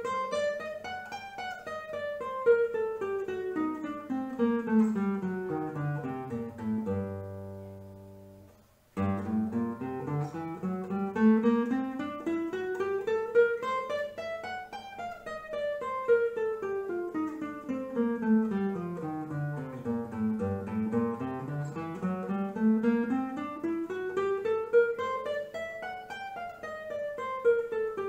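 Classical guitar playing G scales note by note over about three octaves, up and down. A falling run ends on a low G that rings and fades out about seven seconds in. Then a new scale climbs from the bottom, falls, climbs again and starts back down.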